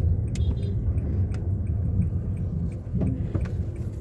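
Car cabin rumble from the back seat of a moving car: low engine and road noise, with a couple of faint clicks.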